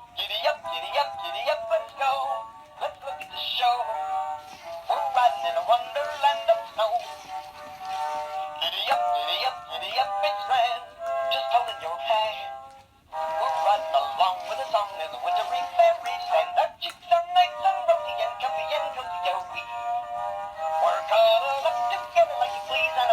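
Singing snowman toy playing a Christmas song through its small speaker, thin and tinny with no bass, pausing briefly about halfway through.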